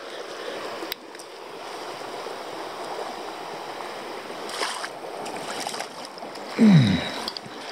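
Small mountain stream rushing steadily over rocks. Near the end a short, louder sound slides down in pitch.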